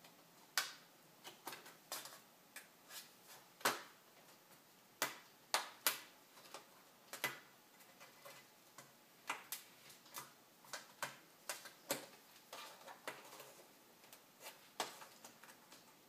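Irregular sharp clicks and taps as fingers and fingernails pry at the edges of a laptop's metal back panel, whose clips are still stuck.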